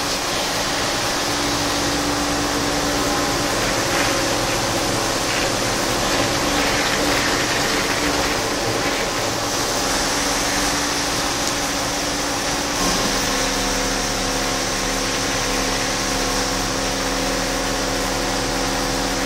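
Steady hum of running industrial machinery in a machine shop, holding several constant tones over a noisy whir. About 13 seconds in, the set of tones shifts as the machines' running changes.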